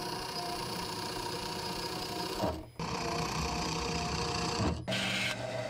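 Benchtop drill press running, its bit boring dowel holes into small walnut pieces: a steady motor whir with a thin high tone. It drops out briefly twice, about two and a half seconds in and again near five seconds.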